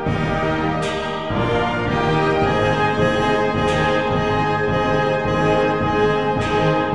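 Orchestral background music led by sustained brass, with sharp accents about a second in, near the middle and near the end.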